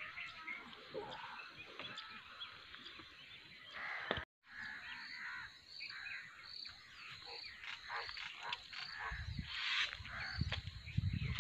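Many short bird calls and chirps overlapping outdoors. The sound cuts out completely for a moment a little after four seconds in, and a low rumble joins from about nine seconds.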